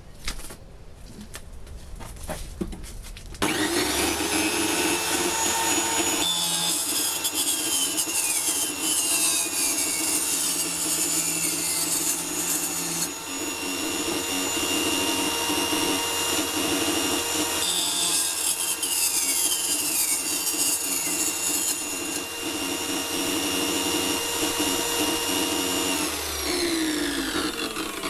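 Electric wet tile saw cutting a glass bottle: the motor starts about three seconds in and runs with a steady whine and a gritty cutting noise. Its pitch dips twice as the blade bites into the glass, and it winds down near the end.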